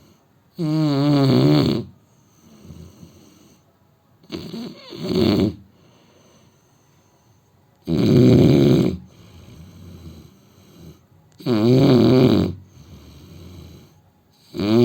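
A man snoring in his sleep: five snores, one about every three and a half seconds, each lasting about a second, with quieter breathing between them.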